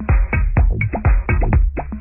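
Electronic dance music with a steady, fast drum-machine beat over a low bass line.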